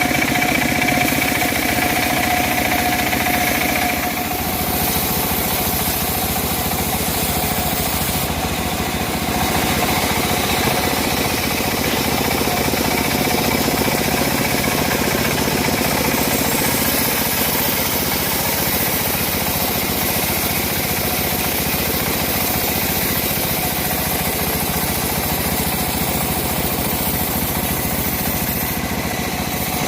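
Homemade bandsaw mill running steadily, driven by an engine with a dense, even beat. A high steady whine in the first few seconds stops about four seconds in.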